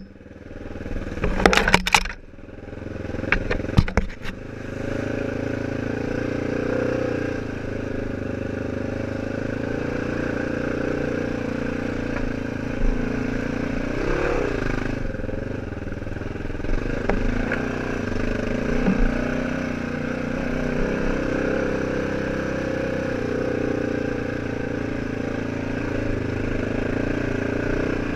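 Off-road vehicle engine running steadily as it rides a rough dirt trail, with loud clattering knocks in the first few seconds and a brief rise and fall in revs about halfway through.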